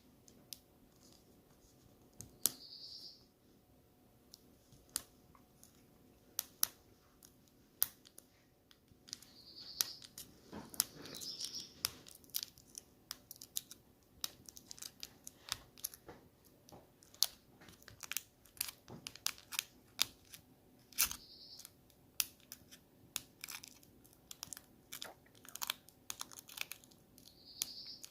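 Packaging being handled and torn open by hand: many scattered clicks and crinkles, with brief tearing sounds, busiest from about ten seconds in.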